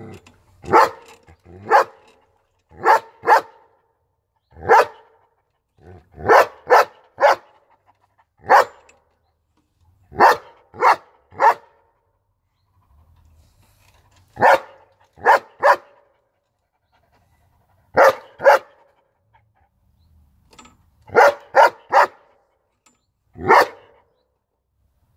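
Young long-coated German Shepherd barking: about twenty short, sharp barks in ones, twos and threes, with pauses of a second or two between the groups.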